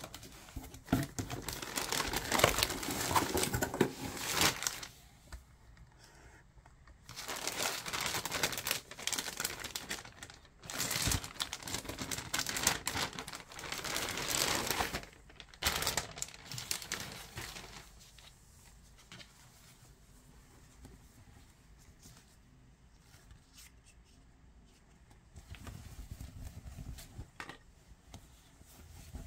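Clear plastic garment bag and packaging crinkling and rustling as they are handled and opened, in several spells of a few seconds each. The last third is much quieter, with only soft handling of the T-shirt.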